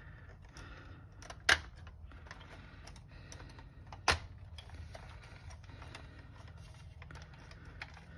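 Two sharp plastic clicks about two and a half seconds apart, with faint small ticks of handling between them, as an instrument cluster's circuit board is eased off the plastic clips and twist locks of its housing.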